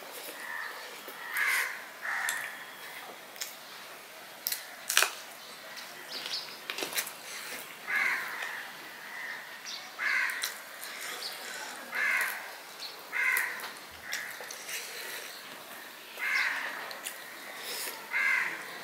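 A bird cawing about eight times at irregular intervals. Between the calls come sharp clicks and smacks of a man eating rice and fish by hand from a steel plate. The loudest sound is a click about five seconds in.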